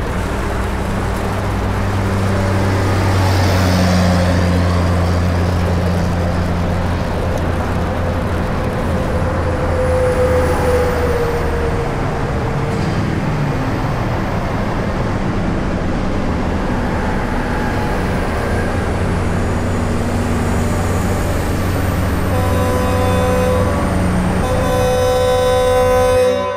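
Steady road and engine noise of highway traffic heard from a moving car, with a low rumble throughout. A vehicle horn sounds, with a long pitched blast near the end.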